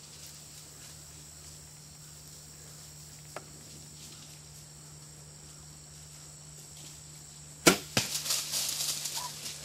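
Two archery shots released about a third of a second apart, each a sharp snap. A rustling scramble through dry leaves follows as the shot coyotes run.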